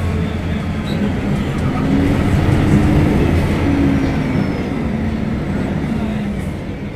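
Diesel engine of a Mercedes-Benz O500UDA bus running under load, its note rising and falling a couple of times. Loudest about three seconds in, then easing off.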